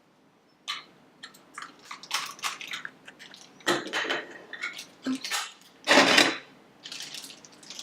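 Irregular rustling and crinkling of toy packaging being handled and opened, with small knocks of plastic toy pieces on a table; the loudest rustle comes about six seconds in.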